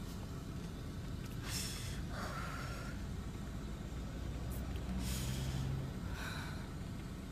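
A person breathing hard through the nose and mouth, several noisy sniffs or gasps, over a steady low rumble.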